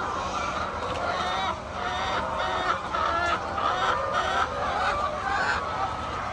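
A flock of chickens clucking, with many short calls overlapping continuously.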